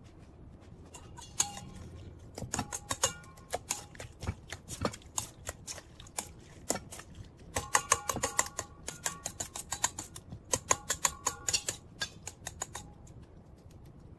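A metal spoon clinking and scraping against a stainless steel mixing bowl while stirring ceviche: rapid runs of ringing clinks with short pauses between.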